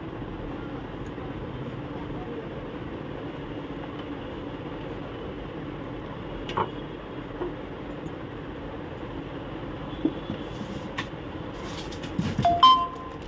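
Steady low background hum, with scattered small clicks and knocks as plastic printer parts and ink tubes are handled, and a louder burst of knocks with a brief high tone near the end.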